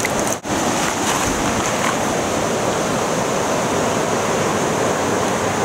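Fast-flowing, swollen river water rushing close to the microphone: a steady, dense wash of water noise, with a brief dip about half a second in.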